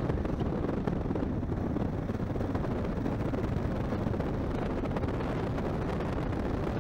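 Steady wind rush on the microphone over the low rumble of a Kawasaki KLR 650 single-cylinder motorcycle, bored out to 705 cc, riding down a gravel road.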